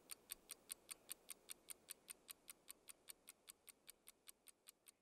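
Faint, even mechanical ticking, about five ticks a second, slowly growing fainter near the end.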